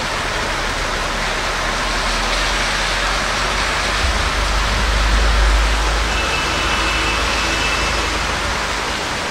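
Heavy monsoon rain pouring down steadily, an even hiss, with a low rumble swelling around the middle.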